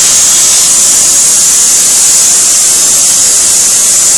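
Gas preheating torch hissing loudly and steadily on the rail ends, the heating stage before a thermite (aluminothermic) rail weld is poured.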